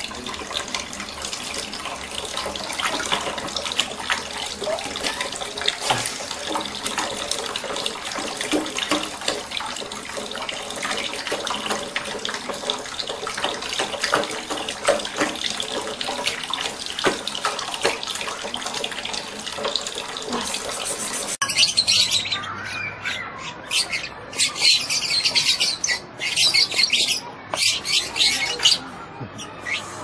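Water running steadily from a bathtub tap and splashing into a glass bowl. About 21 seconds in it cuts off and lovebirds chirp in rapid, high-pitched bursts.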